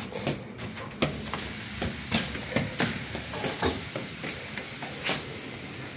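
Pancakes frying in a pan on the stove, a steady sizzle, with light clicks and knocks of pan and utensils over it and one louder knock about five seconds in.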